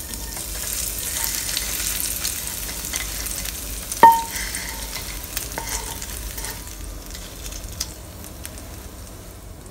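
Hot chili oil poured through a mesh strainer onto chopped raw garlic, ginger and chili in a stainless steel bowl, sizzling with a steady hiss that slowly dies away. About four seconds in comes one sharp, ringing metallic clink, and a fainter one a little later.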